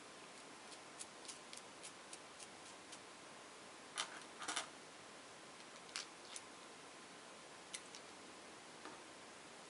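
Faint, scattered clicks and taps of small parts being handled: a plastic yellow gear motor and small metal bolts and nuts being fitted together by hand. The louder clicks come in a cluster about four seconds in.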